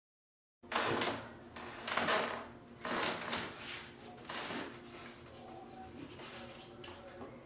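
Marker drawing on a paper poster: a few loud scratchy strokes about a second apart, then softer scribbling with small ticks from about four and a half seconds in.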